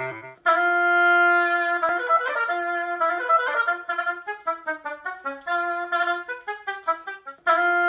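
Oboe playing a solo melodic phrase. A held note begins about half a second in, followed by a run of shorter notes, and another held note starts near the end.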